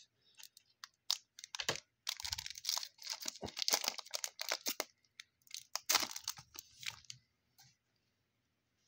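Foil wrapper of a football trading card pack being torn open and crinkled: a run of irregular crackling rips and rustles.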